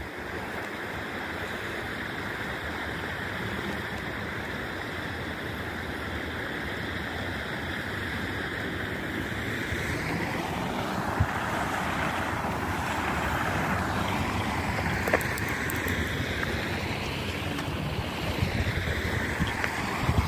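Wind rushing over a phone microphone outdoors, steady at first, then rising and falling in gusts from about halfway through, with a few light clicks of handling.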